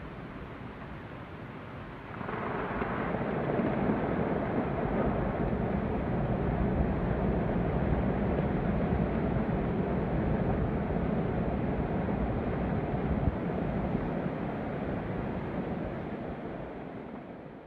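Snow avalanche pouring down a high cliff face: a steady rumble that swells sharply about two seconds in, holds, and fades near the end.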